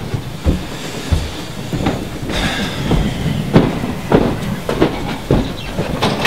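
Footsteps thudding up a stairwell, about two steps a second, over a steady low rumble.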